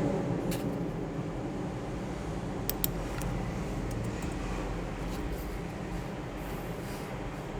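A steady low mechanical hum with a few light clicks, one about half a second in and two close together near three seconds.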